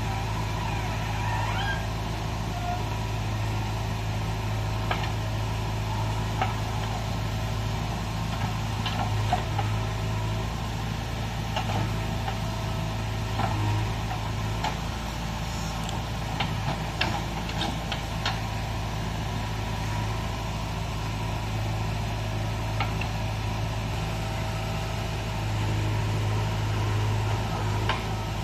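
JCB 3DX backhoe loader's diesel engine running steadily under load while the backhoe digs and swings soil, with scattered short sharp knocks, mostly in the middle. The engine works a little harder near the end, as the loaded bucket is lifted over the trolley.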